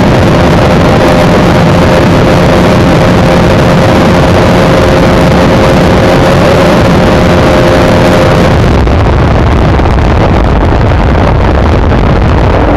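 Bajaj Pulsar RS200 motorcycle running flat out near top speed, a steady high engine note under heavy wind rush on the microphone. About nine seconds in the engine note drops away and the rushing eases as the throttle closes and the bike slows.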